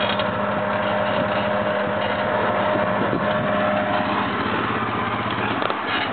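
ATV engine running steadily at low revs as the quad crawls down a rocky ledge.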